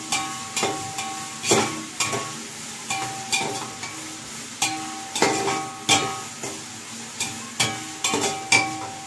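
Metal spoon scraping and knocking against an aluminium pot while stirring sliced onions and green chillies frying in it, over a steady sizzle. The knocks come irregularly, about every half second to a second.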